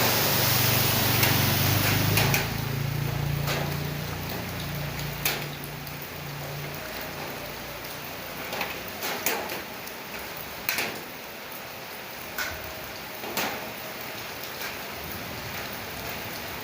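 Steady rain falling, with separate large drops landing sharply every second or so. A low, engine-like hum at the start dies away over the first few seconds.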